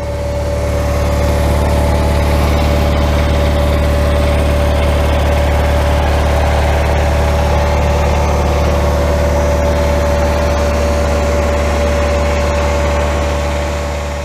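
Cub Cadet 1862 garden tractor's Kohler Magnum 18 twin-cylinder engine running steadily at idle, with a thin steady whine over the low engine note. It fades out near the end.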